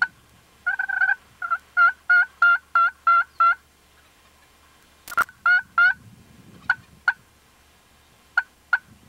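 Hen-turkey yelping: a run of about eight yelps, a sharp click about five seconds in, three more yelps, then four short single clucks spaced out near the end.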